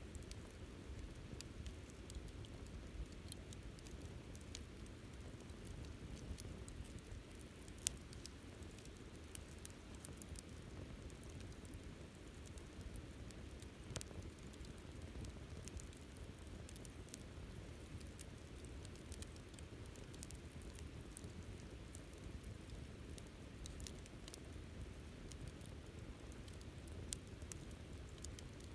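Wood campfire burning, with a soft low rush of flame under steady small crackles and ticks. Two sharper pops stand out, about eight seconds in and about fourteen seconds in.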